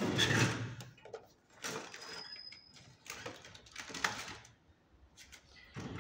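Cardboard product box being handled and shifted about on a wooden desk: a handful of short scraping, rubbing bursts about a second apart.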